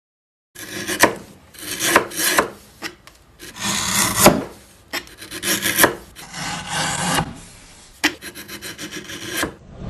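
Hand plane shaving a thin wood strip held in a planing jig, about six strokes of rasping wood-on-steel cutting, each under a second or so, some ending in a sharp click.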